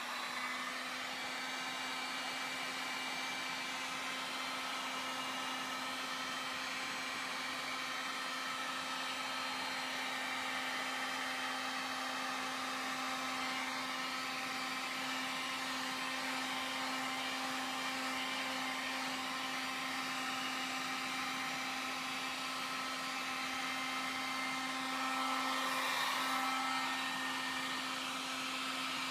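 Drill Master heat gun running steadily, its fan blowing hot air with an even hum and hiss, held over wax-coated canvas to melt the wax into the fabric. It grows a little louder near the end.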